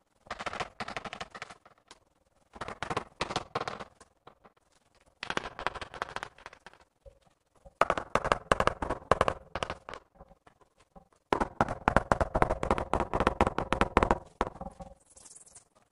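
Rubber mallet tapping a ceramic wall tile to bed it into the tile adhesive, in about five quick bursts of rapid taps with short pauses between them.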